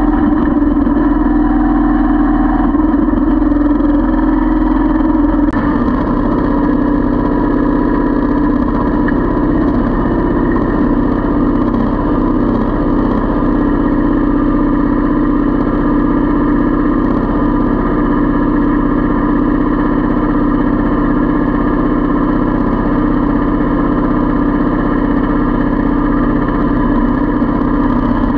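Kubota L3200 compact tractor's three-cylinder diesel engine running steadily under the driver, with a click about five and a half seconds in, after which the low part of the sound changes as the tractor drives off.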